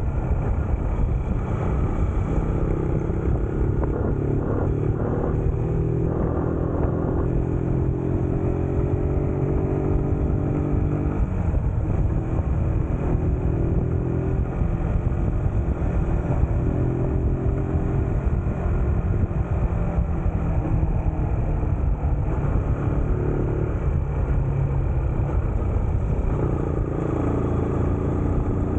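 A motor vehicle on the move: a steady engine-and-road rumble whose engine note drifts slowly in pitch and shifts now and then.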